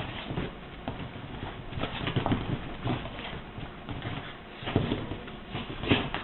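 A dog and a cat play-fighting on a sofa: irregular scuffling, rustling and soft thumps, with a few louder knocks near the end.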